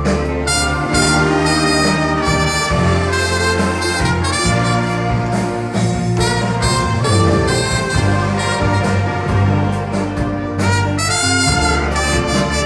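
A church orchestra led by brass and wind instruments plays a piece with held chords and a steady bass line.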